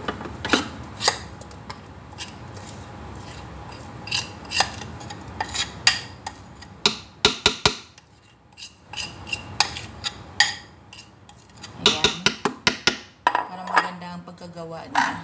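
A spoon clinking and scraping against a ceramic bowl and the rim of a Thermomix jug as batter is scooped and tipped in. Scattered sharp clinks and taps, in quick runs about seven seconds in and again around twelve seconds.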